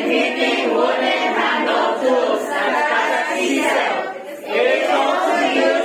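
A class of students voicing the same words together in unison, loud and chant-like, with a brief pause about four seconds in.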